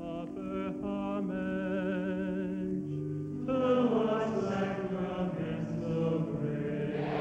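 Chanted singing with long held notes, growing fuller and louder about three and a half seconds in.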